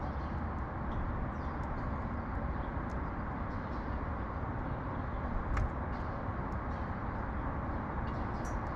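Steady outdoor city background of distant traffic rumble, with faint, scattered short high chirps and ticks over it and one sharper click about five and a half seconds in.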